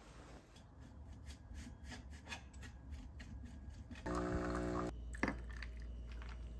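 Small clicks and knocks of an espresso portafilter and its parts being handled at a home espresso machine. About four seconds in, the machine starts with a buzzing tone for about a second, then settles into a low steady hum.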